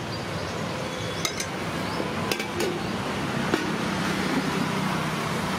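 A metal ladle and serving vessels clink about five times against aluminium pots and lids as food is served, over a steady background hum.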